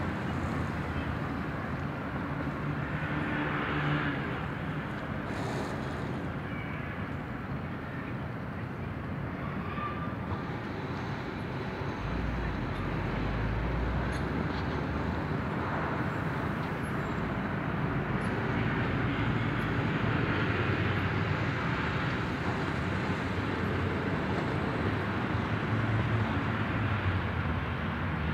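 Steady outdoor city background noise: a continuous rumble of distant vehicle traffic with a faint low hum underneath.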